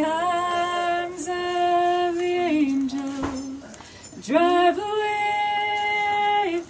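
A woman singing solo with no accompaniment, holding long steady notes. Just past the middle she breaks off for about half a second, then swoops up into a final note held for about two seconds.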